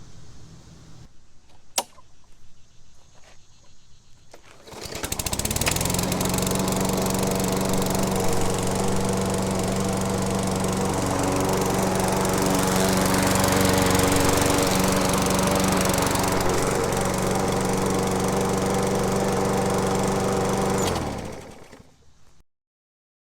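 Murray 21-inch push mower's small engine starting about five seconds in and running steadily for about sixteen seconds on its test run with a newly fitted replacement blade, then shutting off and spinning down. A single sharp click comes shortly before the start.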